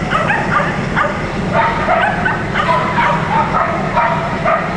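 A dog barking and yipping continuously, short high-pitched yaps several times a second.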